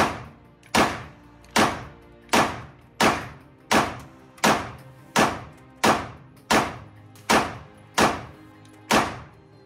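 Semi-automatic handgun fired in a steady string of about thirteen shots, roughly one every three-quarters of a second, each report ringing briefly off the walls of an indoor range.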